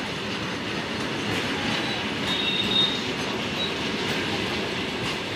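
BCNA covered freight wagons rolling past on the rails, a steady rumble and rattle of wheels and running gear. About two and a half seconds in, a brief high squeal comes from the wheels.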